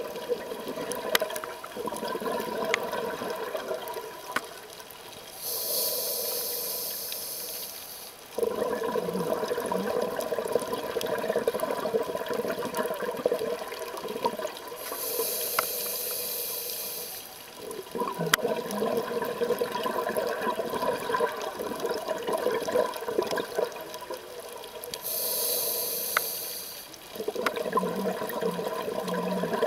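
Scuba diver breathing through a regulator underwater: three breaths. Each is a hiss of about two and a half seconds from the demand valve on the inhale, followed by several seconds of bubbling, crackling exhaust bubbles on the exhale.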